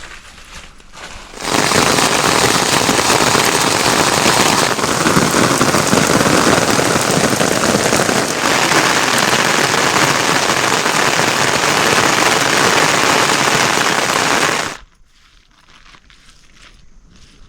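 Heavy rain: a loud, dense crackling hiss that cuts in about a second and a half in and cuts off suddenly near the end.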